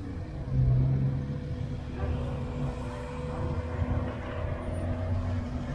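A BMW 3 Series saloon's engine running low as the car rolls slowly past at low speed.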